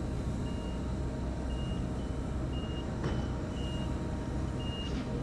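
Vehicle reversing alarm giving a short high beep about once a second, over a steady low rumble.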